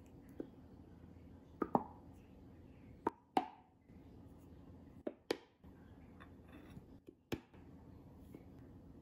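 Horseradish sauce squeezed from a plastic squeeze bottle onto a plate: several short, sharp squirts and plops from the nozzle, over a steady low hum.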